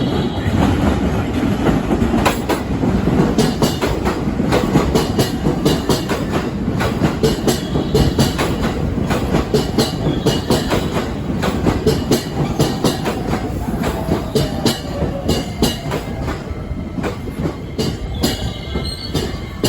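Seven-car commuter electric train pulling into the platform, its wheels clicking rapidly over the rail joints. A motor whine falls in pitch about two-thirds through as the train brakes.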